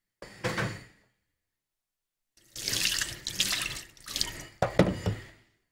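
Hot water and boiled noodles being poured from a pot into a strainer, the water splashing and gushing through in two spells: a brief one just after the start and a longer one from about two and a half seconds in. A couple of sharp knocks near the end are the loudest sounds.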